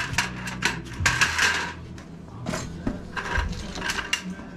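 Handling noise as a work light is carried and moved into place: scattered clicks and knocks with a few short rubbing, scraping sounds, the longest about a second in.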